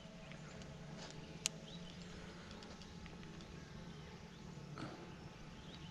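Faint footsteps on a forest trail over a low steady hum, with one sharp click about one and a half seconds in.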